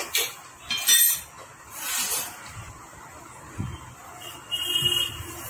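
Hand tools working on a Honda Activa scooter engine: a few short metallic scrapes and clinks, the loudest about a second in, another near the end with a faint ring.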